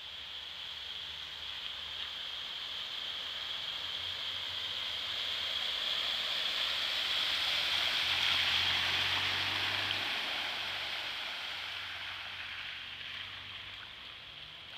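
A small hatchback driving through a flooded street, its tyres throwing up spray. The rushing splash swells as the car approaches, is loudest about eight seconds in, then fades away, with a low engine hum under it at the loudest point.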